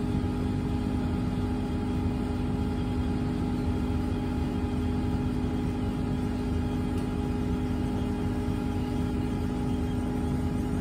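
Steady hum with a constant low tone over a low rumble, heard from inside an electric city bus.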